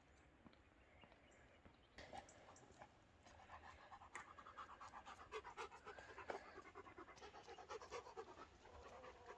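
Faint, quick panting of a German Shepherd dog, a rapid run of short breaths that starts about three seconds in.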